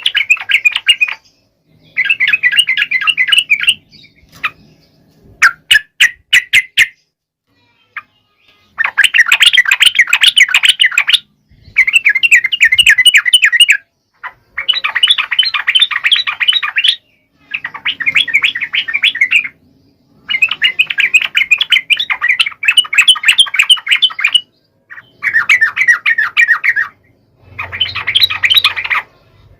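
Yellow-vented bulbul (trucukan) singing in a long run of rapid, bubbly chattering phrases, each two to three seconds long with short pauses between. A few separate sharp notes come about six seconds in.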